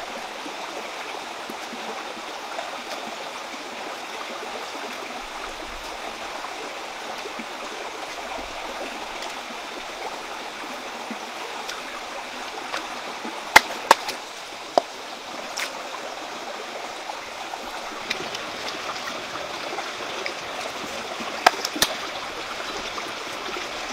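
Steady rushing of a stream running over rocks, with a few sharp knocks about halfway through and again near the end.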